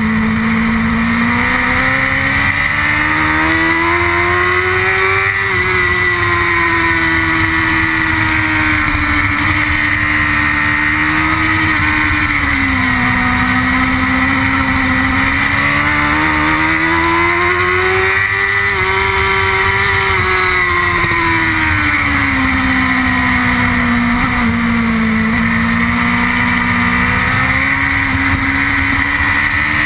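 Onboard sound of a BMW S1000RR's inline-four engine running at high revs, its pitch climbing and falling twice as the throttle is opened and eased through the corners, over a steady rush of wind.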